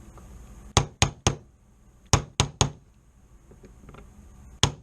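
Hammer tapping a pin into a Hi-Point C9 pistol's frame to seat it flush: seven sharp taps, in two quick sets of three and then one more near the end.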